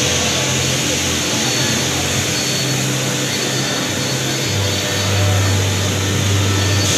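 Steady, loud machine noise with a low hum that shifts in pitch about four and a half seconds in, over indistinct background voices: the din of laser engraving machines running in a busy exhibition hall.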